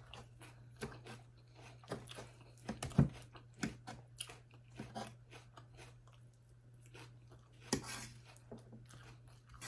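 Close-miked mouth chewing a mouthful of food: irregular wet clicks and small crunches, with a louder one about three seconds in and another near eight seconds.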